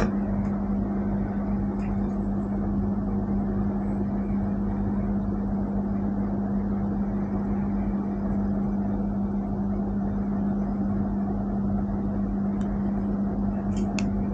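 Steady droning hum with one constant low tone, even throughout. Near the end, a few small sharp clicks as a silicone strap is pushed onto a smartwatch case.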